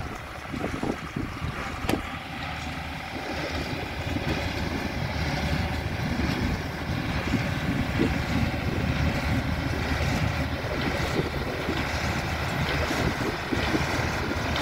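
Ford New Holland 7840 tractor's diesel engine running steadily under load as it pulls a Sperry New Holland Hayliner 370 small square baler picking up hay. The sound grows louder over the first few seconds as the tractor approaches, then holds steady.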